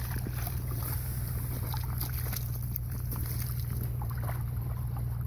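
Small boots splashing and sloshing through a shallow puddle of slushy meltwater in irregular steps, over a steady low rumble.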